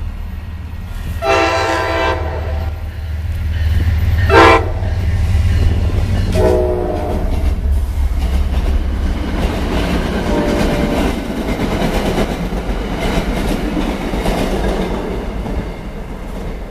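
MBTA commuter train led by an MPI HSP46 diesel locomotive passing over a road grade crossing. The locomotive's horn sounds four blasts, the second short and the last fainter, over the steady low rumble of the passing train.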